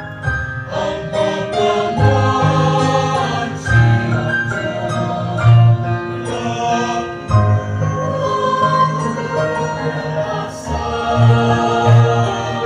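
Mixed choir of women's and men's voices singing in harmony, with sustained held chords and a strong low bass line, amplified through a PA system.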